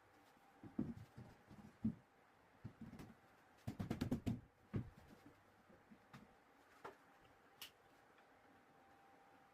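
Irregular wooden knocks and taps as shelf parts are handled and fitted, with a quick run of taps about four seconds in, over a faint steady hum.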